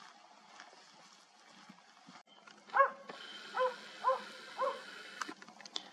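A dog barking four times, about half a second apart.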